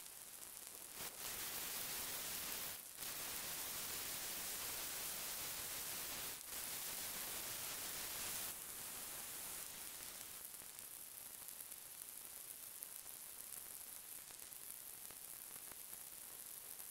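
Steady static-like hiss, strongest in the highs. It jumps louder about a second in, dips briefly twice, and drops back to a quieter hiss about eight and a half seconds in.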